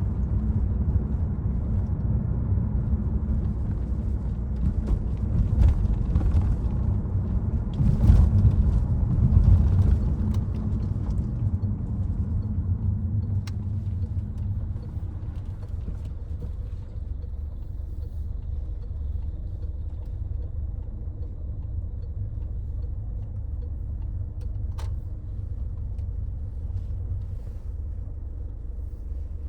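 Citroen C5 Aircross driving in city traffic: a steady low rumble of road and engine noise. It swells briefly about a third of the way in, then eases off and stays quieter.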